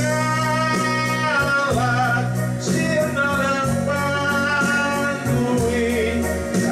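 A man singing a hymn into a microphone over steady instrumental backing, holding long notes with low chords changing underneath.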